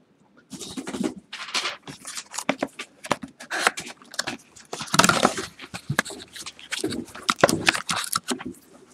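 Plastic and foil wrapping crinkling and tearing, with cardboard scraping, as a sealed trading-card box is opened and its wrapped pack pulled out. A dense run of irregular crackles starts about half a second in.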